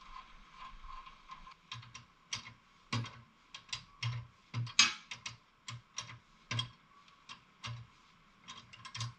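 Hand wrenches working the nuts of a sway bar link bolt: irregular metallic clicks and clinks, about two a second, many with a dull knock under them. The loudest comes a little before halfway.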